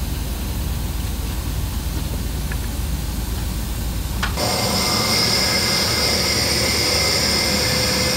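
Steady low rumble of machinery on a CIPP job site. About four seconds in, after a click, it gives way to a louder steady hiss carrying several high whistling tones, like pressurised air flowing through the hose and valve manifold.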